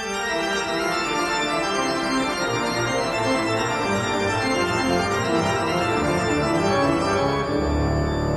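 Background music of an organ-like keyboard playing quick runs of held notes, with a deep bass coming in near the end.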